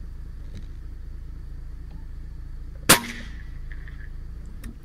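A single shot from a .30-calibre Hatsan Hercules Bully PCP air rifle, one sharp crack about three seconds in that rings briefly after, over a steady low hum.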